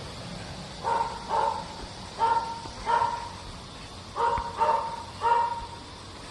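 A dog barking: seven short barks, in two pairs and then a group of three.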